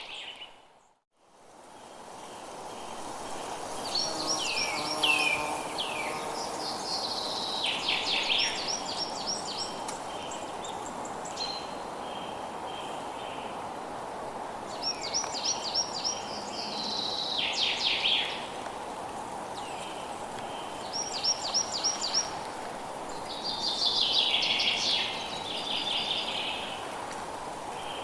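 Forest ambience: songbirds sing in phrases of rapid repeated and falling notes every few seconds over a steady background hiss. About a second in, the sound drops out almost completely and fades back up.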